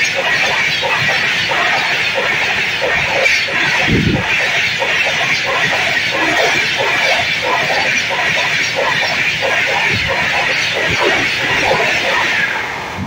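Express train's passenger coaches passing close at speed: a loud, steady rush of wheel-on-rail noise and wind with rapid clattering from the wheels. It falls away near the end as the last coach goes by.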